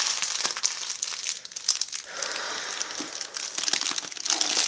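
Crinkling and rustling handling noise: a dense run of small crackles.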